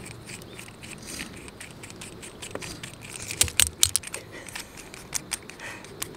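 Black metal pole bracket and rod being handled and fitted together: light metallic clicks and scrapes, with a quick run of sharp clicks about three and a half seconds in.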